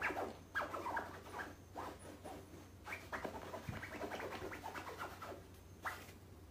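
Domestic cat vocalizing in quick runs of short, high, falling chirps, several a second, broken by brief pauses.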